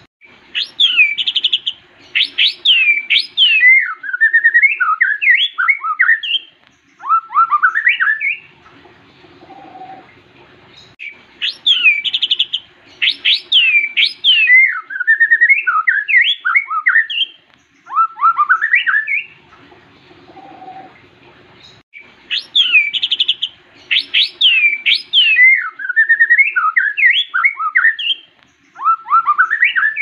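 White-rumped shama (murai batu) singing. Its song phrase runs about eight seconds: ringing whistles that sweep downward, a quick trill, then a run of warbled notes. The phrase is repeated three times almost exactly, with short pauses between.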